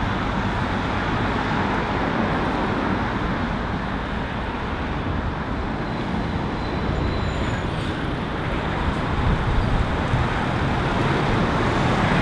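Steady road traffic, with a diesel box lorry's engine and tyres getting louder as it comes past close by near the end.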